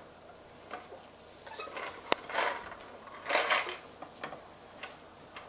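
Scattered clicks and short scraping, rustling sounds of things being handled, with a sharp click about two seconds in and a louder rustle a little past three seconds; no steady motor running.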